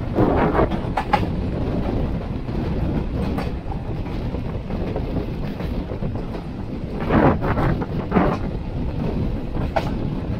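Indian Railways express passenger train running at speed, heard from aboard the coach. The wheels keep up a steady rumble on the track, with clusters of clickety-clack from the rail joints that come loudest about a second in and again around seven and eight seconds.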